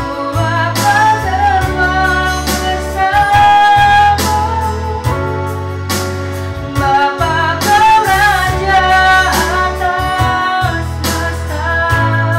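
A woman singing an Indonesian-language worship song to a backing of guitar and bass with a steady beat.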